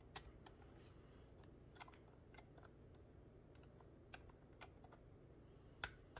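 Faint, sparse clicks of Qman Technic-style plastic building-block parts being handled and pressed into place, about half a dozen small ticks over low steady room noise.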